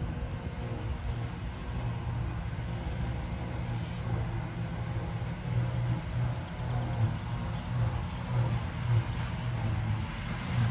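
John Deere 8400i self-propelled forage harvester chopping grass alongside a John Deere tractor pulling a silage trailer: a steady low engine drone that rises and falls a little in level.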